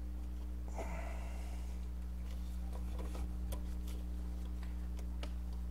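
Faint clicks and taps of a serpentine belt and engine parts being handled by hand, over a steady low hum. A short breath about a second in.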